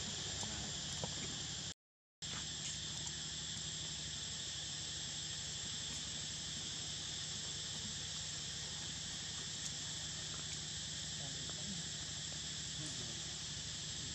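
Steady, dense insect chorus shrilling without pause, cutting out completely for a split second about two seconds in.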